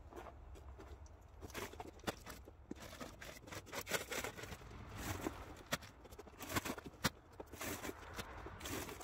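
Irregular crunching footsteps in snow and the rustle and thud of heavy plastic bags of wood pellets being lifted and set down on a small flatcar.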